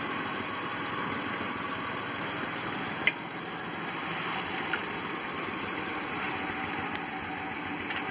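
An SUV's engine idling steadily, with a sharp click about three seconds in and a fainter one near five seconds.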